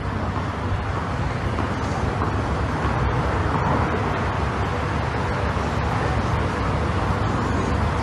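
Steady outdoor ambient noise at a tennis court: an even low rumble with a hiss above it, and no ball strikes.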